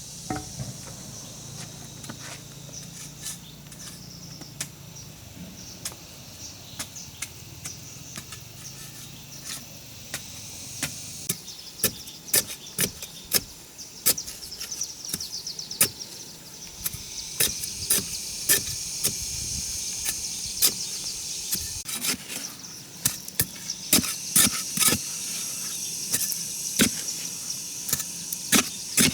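Irregular sharp knocks and taps of tools on wood, sparse at first and coming thick and fast from about eleven seconds in, over a steady high insect buzz.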